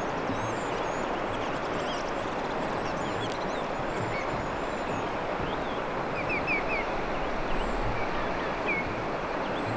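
Small songbirds chirping faintly and intermittently over a steady rushing background noise, with a quick run of three high notes past the middle.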